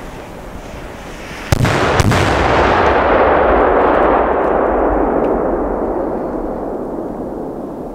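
Cipolla firecrackers (homemade Italian bomba carta) going off: two loud bangs about half a second apart, then a long echo fading over about five seconds.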